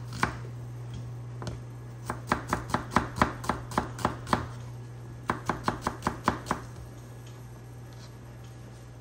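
Chef's knife slicing a peeled raw potato on a cutting board: quick knocks of the blade striking the board, about four a second, in two runs of several strokes after a couple of single cuts. A steady low hum runs underneath.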